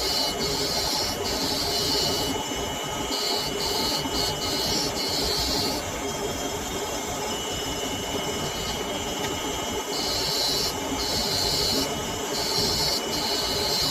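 Sharpening machine running steadily, with a scissor blade pressed to it on and off, each contact adding a hiss that starts and stops every second or so.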